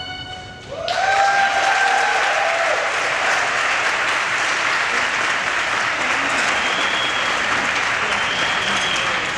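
The last notes of the program music fade out, and about a second in an audience breaks into applause that keeps going, with a cheer as it begins and two high whistles over it later.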